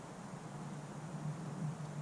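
Quiet room tone: a faint steady hiss with a low hum beneath it, and no distinct handling sounds.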